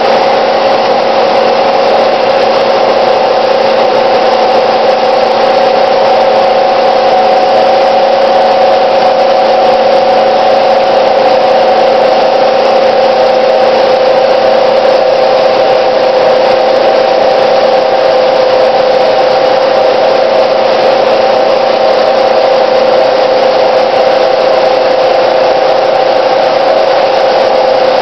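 Bank of small froth flotation cells running: the motors driving the impeller shafts and the aerated slurry make a steady, loud machine drone with a few fixed humming tones.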